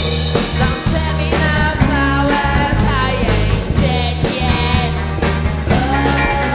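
Garage rock song played by a rock band: drums and bass keep a steady beat while a lead melody bends and slides over them.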